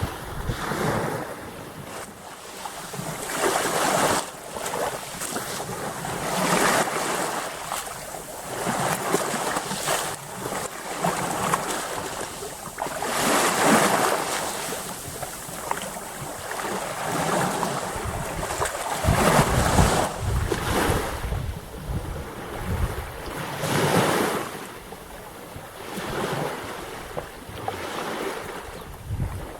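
Black Sea waves breaking and washing in, the surf swelling and falling every few seconds, with a low rumble at times.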